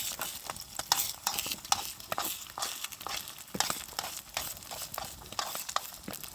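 Food frying in a pan and being stirred: a steady sizzle with many irregular scraping clicks.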